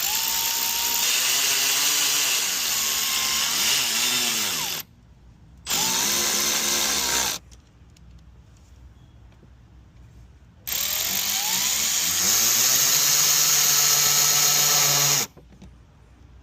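Power drill driving screws in three runs: a long one, a short one, then another long one. Each starts with the motor whining up to speed, and the runs are separated by pauses.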